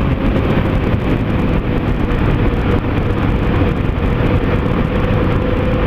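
Yamaha XT 660 single-cylinder motorcycle engine running at a steady cruising speed, its tone holding and sinking slightly, under a steady rush of wind and road noise on the helmet microphone.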